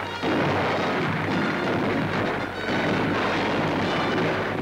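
Steady din of battle: a continuous rumble of gunfire and explosions, with music faintly beneath it.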